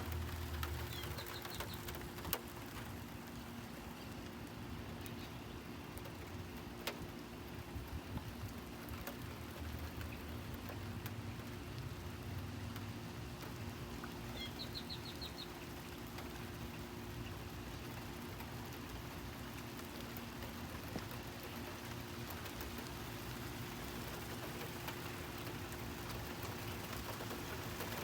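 Steady rain falling with a few sharp drip clicks. A bird gives two brief trills of quick high notes, about a second in and about halfway through, over a steady low hum.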